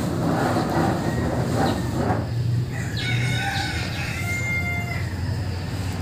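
A rooster crowing once, one long call starting about halfway in and breaking off a couple of seconds later, over a steady low hum.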